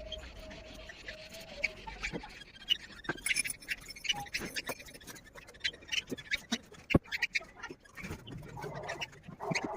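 Small pet birds in a cage chirping and clicking in short, irregular calls, with scratching sounds, and a louder call near the end.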